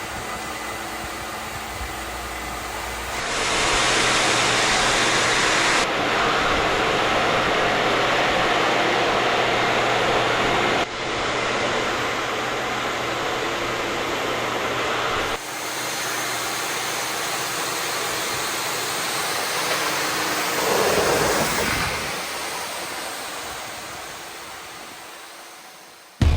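Steady, loud machine noise in several clips joined by abrupt cuts, fading out near the end.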